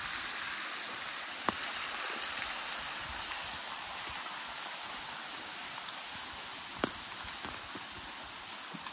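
Small creek waterfall running steadily, an even wash of falling water that fades a little. A few sharp clicks cut through it, one about a second and a half in and two near the end.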